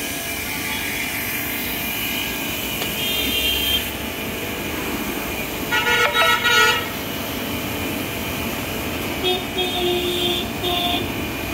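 A Btali BT 1800 HPW 3 HP pressure washer runs steadily under test at full pressure, its water jet hissing, with street traffic behind. A vehicle horn honks loudly about six seconds in, and shorter horn toots come around three seconds and again near the end.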